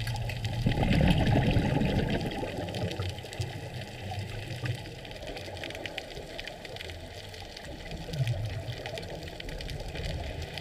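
Underwater sound picked up through a GoPro's waterproof housing: a diver's exhaled regulator bubbles gurgle loudly about a second in and again near the end, over a steady low hum and a constant crackle of faint clicks.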